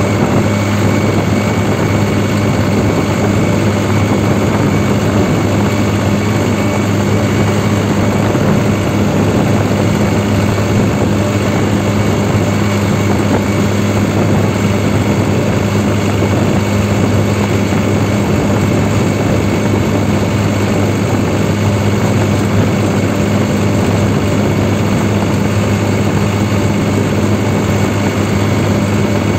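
New Holland 3630 Super Plus tractor's diesel engine running at a fixed hand-throttle setting while the tractor drives along the road: a loud, steady drone with a strong low hum that does not change.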